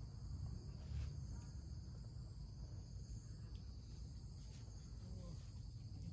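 Insects singing steadily in several high tones over a constant low rumble, with a few faint clicks.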